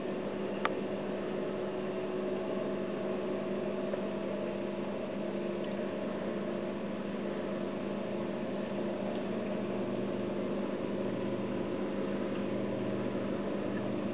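Steady hum of reef aquarium equipment running (circulation and return pumps), several low tones over a soft hiss, with one short click under a second in.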